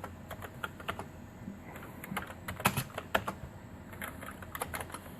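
Typing on a Commodore 64 keyboard: irregular key clicks, a quicker run in the middle.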